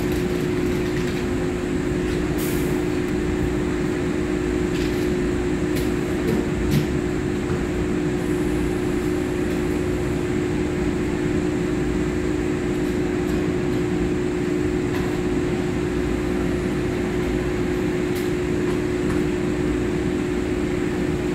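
EMU3000 electric multiple unit standing at the platform, its onboard equipment humming steadily with one constant low tone. A few faint clicks sound over the hum.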